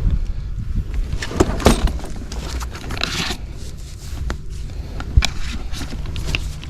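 Hands handling tools while refrigerant gauge probes are connected: scattered clicks, scrapes and rustling with a few sharp knocks, over a low steady hum.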